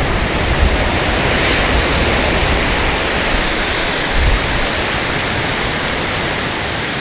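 Surf breaking on an open beach: a steady rush of waves, with wind buffeting the microphone in a few low bumps.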